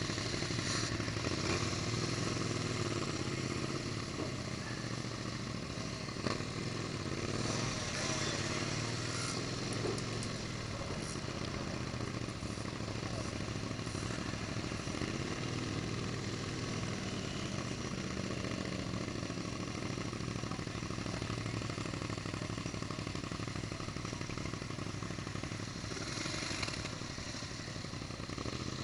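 Motorcycle engine running at low revs while the bike rolls slowly, its note rising and falling gently with small throttle changes.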